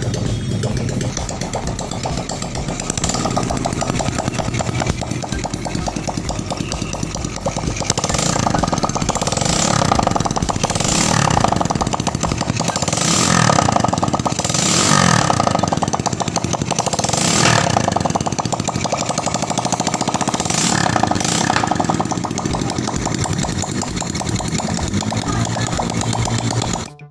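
Freshly overhauled Rusi Korak 110 motorcycle engine running after reassembly, idling and then revved up and down several times in the middle stretch. The engine sound cuts off suddenly near the end.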